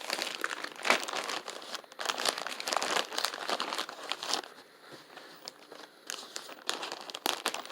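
Plastic packaging crinkling and rustling as it is handled, in spells with a couple of brief lulls.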